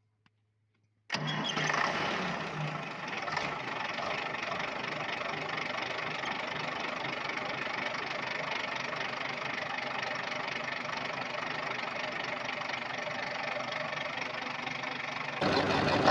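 Volvo Penta TWD121 six-cylinder turbocharged diesel coming in suddenly about a second in and running steadily, on test after its faulty intake valve was replaced. It gets louder near the end.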